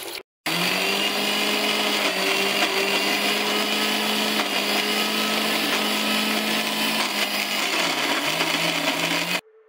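Electric mixer grinder running with its small stainless-steel jar, grinding soaked urad dal into a smooth batter: a steady motor whine that stops abruptly near the end.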